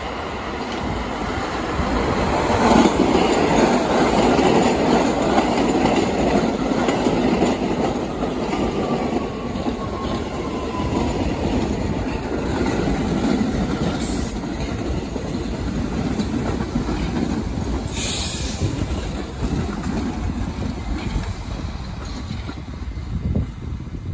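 An R68 New York City subway train pulls into the station and brakes to a stop, its wheels running loudly over the rails as it passes. A falling whine comes as it slows, and two brief sharp high sounds come later in the stop.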